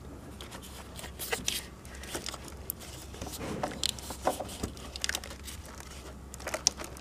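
Handling noise in an engine bay: scattered light clicks and crinkly rustling as a hand brushes and presses among corrugated plastic hose loom and lines.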